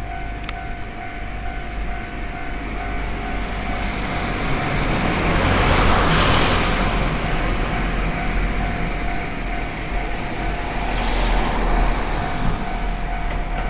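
Japanese level-crossing warning bell ringing continuously in a steady repeating tone while a train passes over the crossing. The train's running noise swells to a peak about six seconds in and again near eleven seconds.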